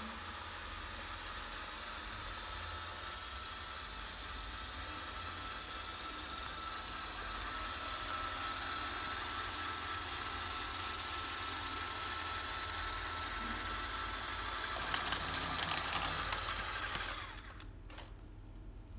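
Xiaomi robot vacuum cleaner running with a steady mechanical whir and a faint whine. It gets louder and rattly near the end, then cuts off about 17 seconds in, followed by a couple of clicks.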